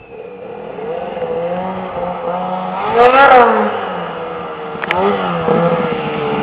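Ski-Doo snowmobile engine running as the sled approaches, growing louder. It revs up and back down about three seconds in, the loudest moment, and gives a shorter rev near five seconds.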